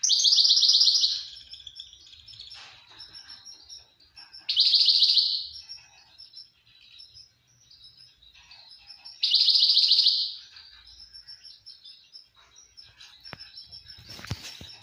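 Caged finch singing: loud, buzzy trilled phrases about a second long, coming roughly every five seconds, with quieter twittering in between. A couple of sharp clicks near the end.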